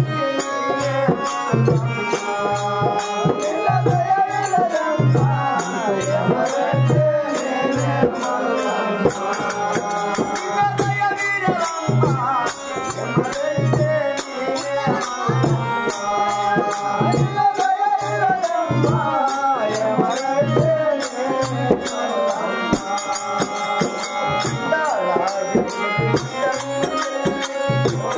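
Kannada bhajan, a devotional song: a singing voice carries the melody over a drum beating a steady rhythm, with fast, high ticking percussion above it.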